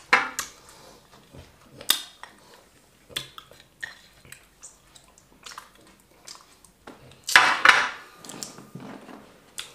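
Hands squelching wheat fufu and okra soup on a ceramic plate, with scattered sharp clicks and knocks of fingers and plate. A louder, longer burst of this messy noise comes about seven seconds in.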